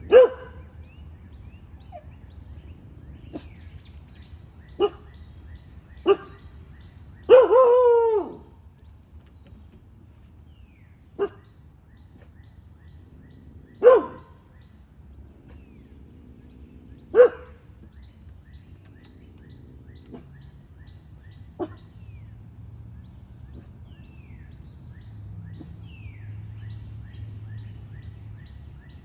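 Cane Corso puppy barking in single sharp barks a few seconds apart, about eight in all. One bark about a quarter of the way in is drawn out and falls in pitch, and the barks thin out toward the end. Birds chirp faintly in between.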